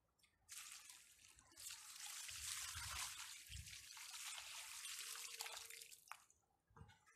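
Water pouring from a tilted plastic barrel and splashing onto a heap of loose dug soil, starting about half a second in, with a short break, and tailing off near the end.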